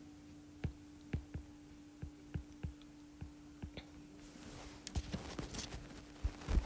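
Faint, irregular taps of a stylus on an iPad's glass screen during handwriting, over a steady faint hum. A soft rustling starts about two-thirds of the way through.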